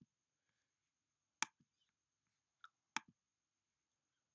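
Computer mouse clicking: sharp single clicks about a second and a half apart, with a fainter one in between, over near silence.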